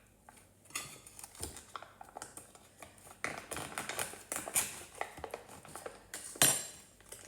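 Plastic hummus tub being handled and pried open: a run of small plastic clicks and crackles, growing busier halfway through, with one sharp snap near the end.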